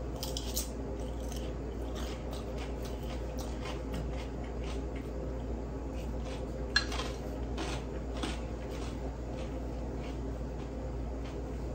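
Chewing a mouthful of crisp Caesar salad lettuce: a run of soft crunches and wet clicks, with one sharper click about seven seconds in.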